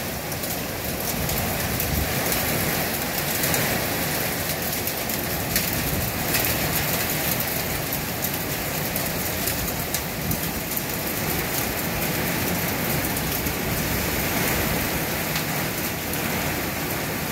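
Heavy downpour with hail: a steady rushing hiss of rain, dotted with many small sharp ticks of hailstones striking.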